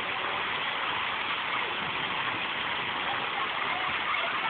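Splash-pad fountain jets spraying and splashing onto wet pavement, a steady hiss of water, with children's voices mixed in.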